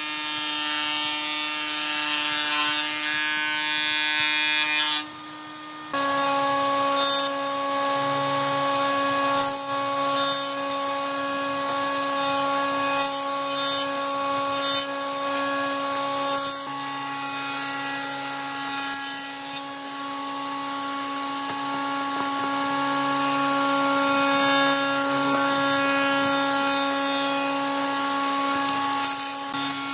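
Combination planer-jointer woodworking machine running with a steady whine as boards are planed through its cutterhead. The sound drops away about five seconds in and comes back at a slightly different pitch.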